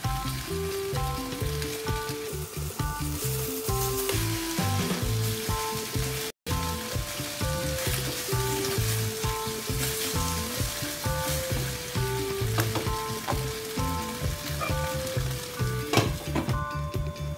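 Pork and vegetables sizzling as they are stir-fried with a spatula in a stainless steel wok, under background music with a repeating melody and a bass beat. The sound drops out for a moment about six seconds in, and near the end a glass lid clacks onto the wok.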